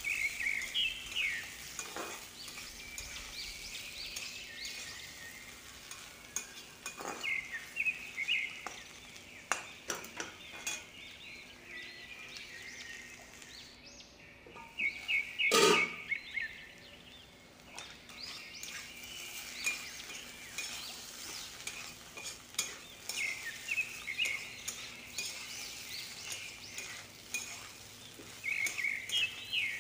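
A metal spatula scraping and stirring sliced spiny gourd in a kadai, in repeated short strokes over a light frying sizzle. One loud metal clank with a short ring comes about halfway through.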